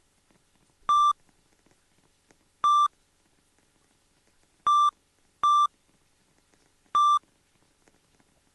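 Microwave oven beeping: five short single-tone electronic beeps at uneven intervals, each about a fifth of a second long.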